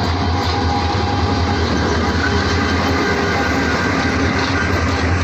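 Diesel locomotive passing close by, then its passenger coaches rolling past on the rails, as a loud, steady rumble with a low hum.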